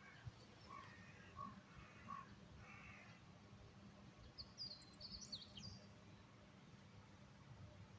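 Near silence with faint bird calls: a few short calls in the first three seconds, then a quick cluster of higher chirps around five seconds in.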